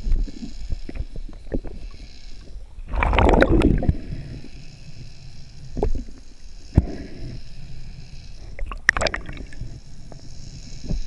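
Underwater sound heard through a camera's waterproof housing: a low, muffled rush of water with scattered knocks, and louder rushing surges about three seconds in and again near nine seconds.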